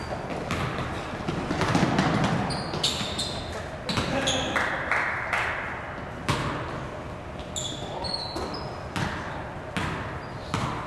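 Basketball game on a wooden gym floor: a ball bouncing as it is dribbled, repeated short high sneaker squeaks, and players' voices calling out.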